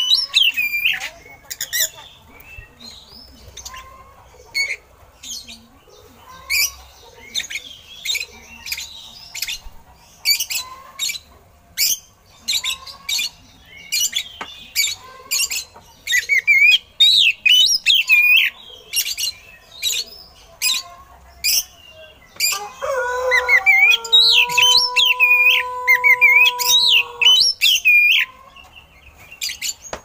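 Oriental magpie-robin singing: loud, sharp repeated notes mixed with quick warbling phrases. Near the end a steady, lower held tone with overtones runs for about four seconds beneath the song.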